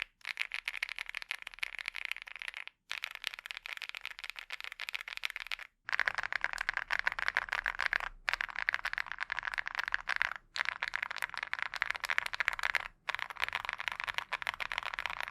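Mechanical keyboard fitted with full metal keycaps being typed on quickly, a dense stream of keystroke clacks. It comes in several short takes split by brief silent breaks, and the takes from about halfway on are louder and fuller.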